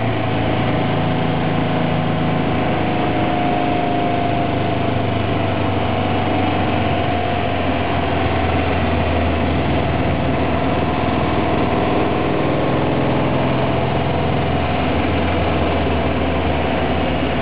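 The VW-powered Road Rat's engine heard on board while lapping, running at a fairly steady speed with its note sagging slowly through the middle, over road and wind noise.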